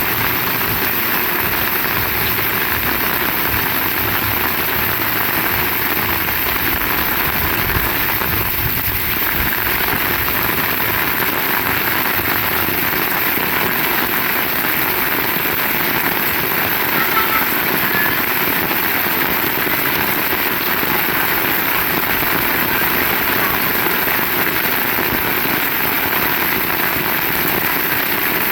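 Heavy rain falling steadily on surfaces, a dense even hiss, with a faint low rumble underneath in the first half.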